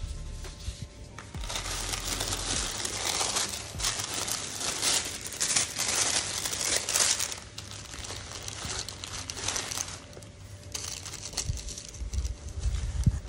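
Packaging being crinkled and crumpled while a box is unpacked, as an irregular run of rustling crackles that pauses briefly about ten seconds in and then resumes.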